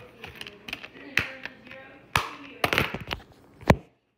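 Handling noise: a run of sharp taps and clicks over faint rustling, the loudest knock near the end, then the sound cuts out suddenly.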